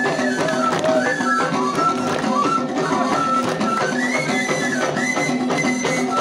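Amazigh folk music: a repeating melody line of held and gliding notes over a steady beat of frame drums.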